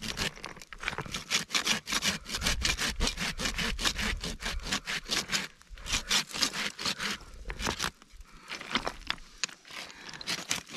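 A hand blade cutting through the woody stems of a dry shrub at the root, in quick back-and-forth strokes several times a second. The strokes break off briefly near the end, then a few slower cuts follow.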